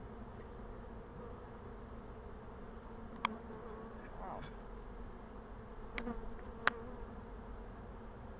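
Honeybees buzzing in a steady drone from a hive opened for inspection. Three short sharp clicks cut through the hum, about three, six and nearly seven seconds in.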